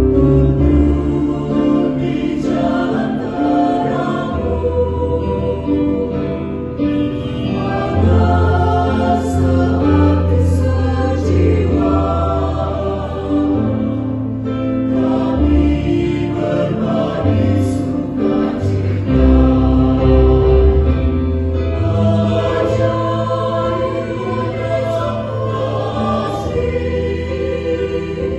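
Adult choir singing a Christian hymn, with organ and piano accompaniment holding sustained low notes underneath.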